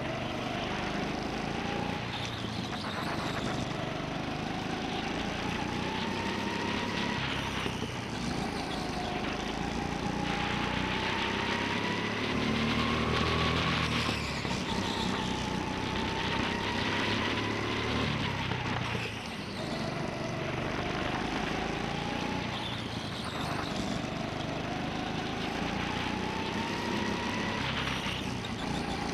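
Go-kart motor heard from on board during a race, its whine climbing steadily in pitch as the kart speeds up and dropping sharply as it slows for corners, over and over, with a steady rush of noise beneath.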